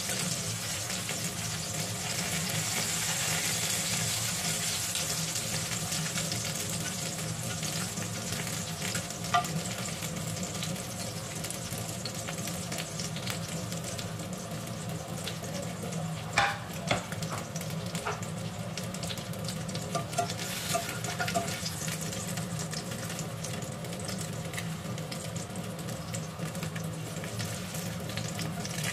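Bell pepper halves and eggplant slices sizzling steadily in oil in a frying pan. A few sharp clicks of metal tongs against the pan and plate come about a third of the way in and again past the middle, as pieces are lifted out.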